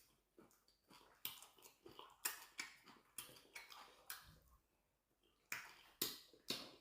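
Quiet eating sounds from a person eating soup: a string of short clicks and smacks, a few each second, with brief pauses.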